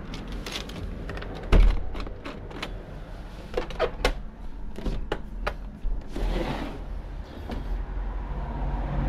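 Knocks, clicks and clatter of things being handled during setting up, with one heavy thump about a second and a half in and a short hiss just after six seconds, over a steady low hum.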